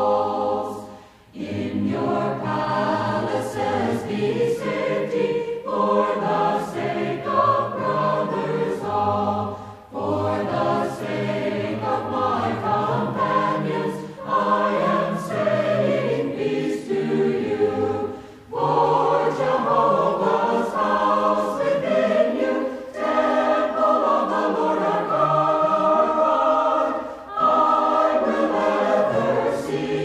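Background music: a choir singing in long phrases with short breaks between them.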